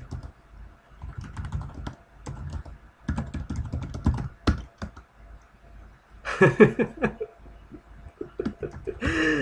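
Typing on a computer keyboard: a quick run of keystrokes over the first five seconds or so, then a pause.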